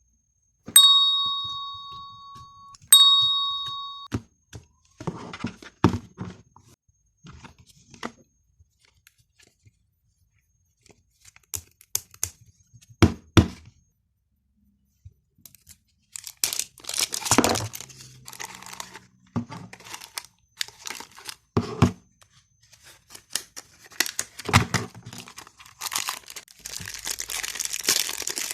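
Two ringing dings near the start, then scattered knocks and bursts of crinkling and tearing, as wrapping is handled and torn open, thickening into a long stretch of crinkling near the end.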